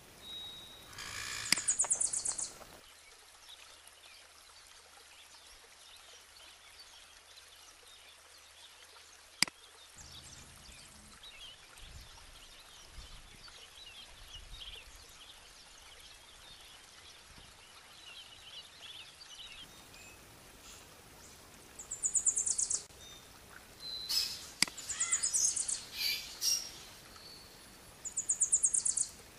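Background nature soundscape of songbirds over a steady rush like flowing water, with high, fast-trilled chirps about two seconds in and in several bouts near the end. A single sharp click a little over nine seconds in.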